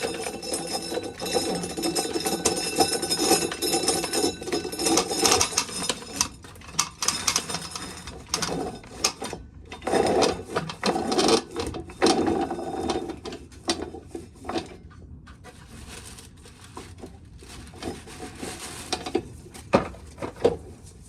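Dried corn being shelled, with kernels and cobs rattling. A steady mechanical whir runs for the first several seconds, then gives way to scattered rattles and clicks.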